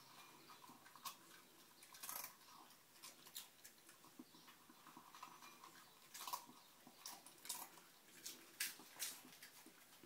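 A small dog chewing dry kibble from a bowl: faint, irregular crunches and clicks, with a few louder crunches scattered through.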